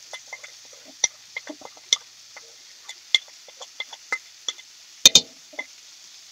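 Light clinks and taps of a utensil against a ceramic plate, scraping dry seasonings off it into a pot of broth: a couple of dozen small ticks, the loudest a double clink about five seconds in.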